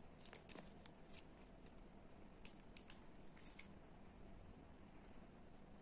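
Faint small clicks and crinkles of fingers handling a clear jelly adhesive nail tab and setting it on a nail, a cluster of soft ticks in the first three and a half seconds, then near silence.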